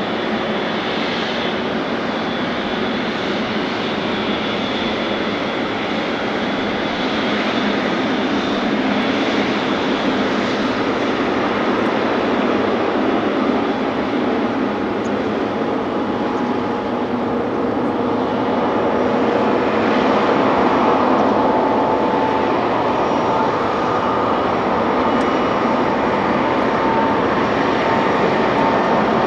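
Boeing 787-8 airliner's GEnx-1B turbofan engines at takeoff thrust through the takeoff roll and lift-off: a steady rush of jet noise that grows gradually louder as the aircraft comes closer, with a steady whine coming in about two-thirds of the way through.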